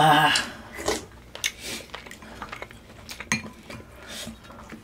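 Eating utensils clinking and knocking against a bowl, a string of separate light clicks spread out over a few seconds.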